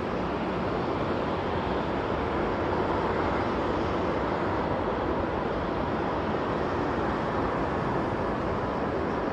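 Steady jet roar of a Qatar Airways Boeing 777's GE90 turbofans as the airliner rolls along the runway, heard at a distance as an even rushing noise.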